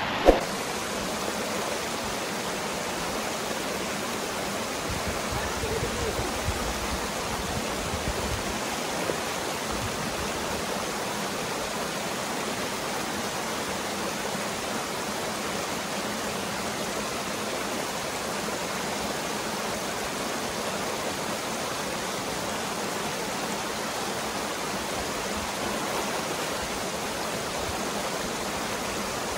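Steady rush of a mountain river's water pouring over rocks into a pool, with a sharp knock right at the start.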